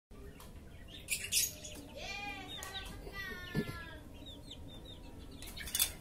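White cockatoo squawking: a harsh screech about a second in and another near the end, with shorter wavering calls between them.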